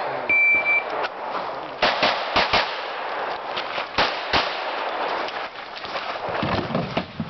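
A shot timer's short, steady electronic start beep, then a string of pistol shots, several in quick pairs with pauses between them.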